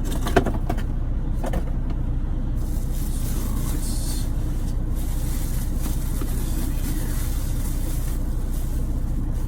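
Steady low rumble of an idling truck engine, with a sharp knock about half a second in and a lighter one a second later as cardboard packaging is pulled from the coffee maker's box.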